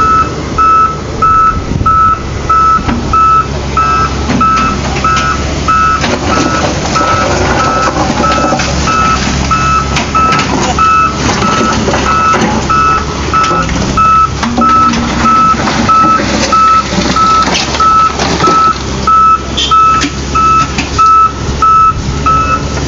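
A truck's reversing alarm beeping steadily, about two beeps a second, over the rumble of its running engine.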